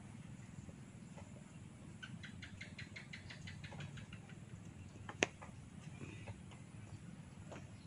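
Hair cracking during a head massage: a quick, even run of about a dozen small crackling snaps lasting about two seconds, then one sharp snap about five seconds in.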